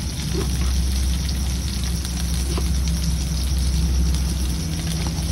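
Chopped green chillies frying in oil in a pan on a gas stove, a faint sizzle over a steady low rumble.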